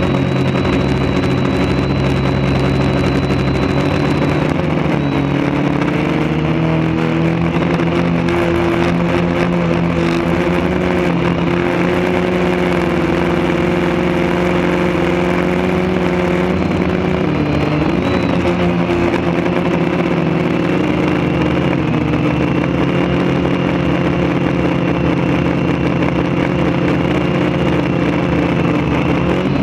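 Quadcopter motors and propellers running steadily, heard from the camera on the craft itself, with a haze of air noise over them. The motor pitch shifts slightly a few times as the throttle changes.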